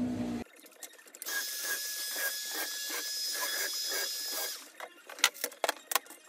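A screwdriver driving a screw into the chipboard cabinet rail: a steady squealing whine with faint ticking about four times a second, lasting about three seconds. Then a few sharp clicks of hardware being handled in a plastic organiser box.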